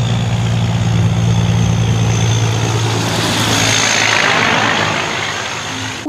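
Semi-truck's diesel engine running with a steady low hum as the truck drives along the road, with a hiss that swells about two-thirds of the way through.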